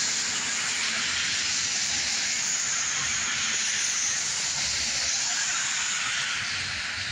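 Steady hiss of rain falling on wet pavement and grass.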